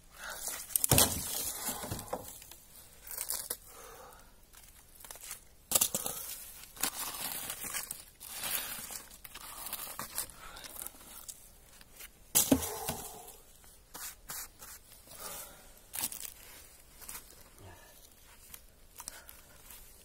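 Rotten wood and bark being torn and broken off a fallen log by hand: irregular cracking, tearing and scraping, with the sharpest snaps about a second in, around six seconds and about twelve and a half seconds in.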